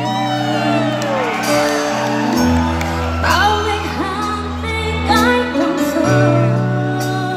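Live band music: a singer's voice through the PA over long held keyboard chords and bass notes, heard from among the audience in a large hall.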